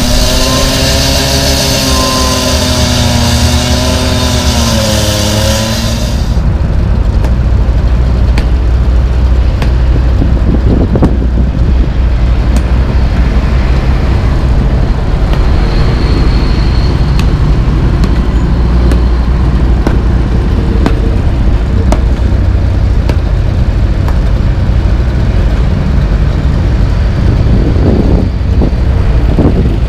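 Heavy diesel engine running steadily close by, a low even drone, most likely the Komatsu PC220LC excavator's engine. For the first six seconds a loud hiss and a wavering whine sit on top of it, then stop abruptly.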